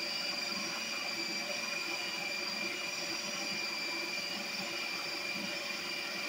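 Ninja Creami ice cream maker running mid-cycle, its motor driving the spinning blade down through a pint of ice cream base. A steady machine whine with two steady high tones over an even hum.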